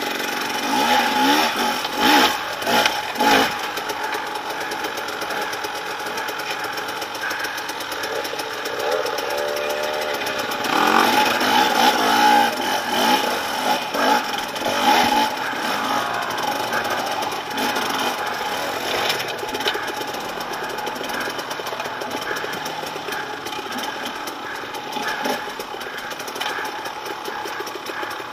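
Dirt bike engines running at low speed, with repeated short blips of the throttle that rise and fall in pitch, the loudest bursts a few seconds in and again about ten to fifteen seconds in, as the bikes pick their way up a rocky hill climb.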